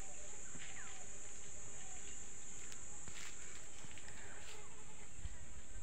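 Insects droning steadily in dry woodland: one unbroken high-pitched buzz, with a few faint clicks.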